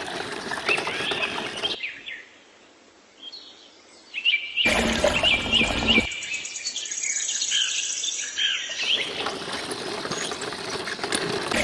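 Birds chirping in quick repeated phrases over a steady outdoor hiss. The sound drops away for about two seconds early on, then comes back.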